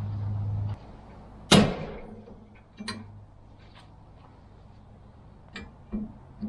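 Tools and hardware being handled during a trailer rack installation: a low steady hum stops just under a second in, then one loud sharp knock with a short ringing tail, followed by several light clicks and taps.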